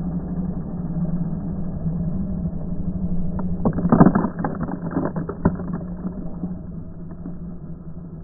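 Kymco scooter engine running with its rear wheel spinning in loose dirt, heard slowed down as a deep, steady drone. About four seconds in, a dense spatter of grit and soil clattering against the camera is the loudest part, thinning out over the next second or two.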